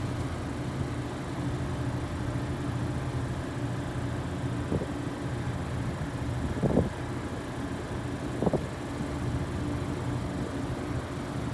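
Steady low hum of a Honda Accord running, with three brief knocks about five, seven and eight and a half seconds in.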